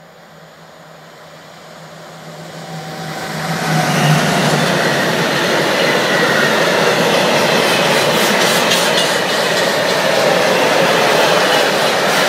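Class 145 electric locomotive approaching with a low steady hum that grows louder over about four seconds, then a freight train of loaded timber wagons passing close by. The wheels roll steadily on the rails, with scattered clicks from the wheels over rail joints.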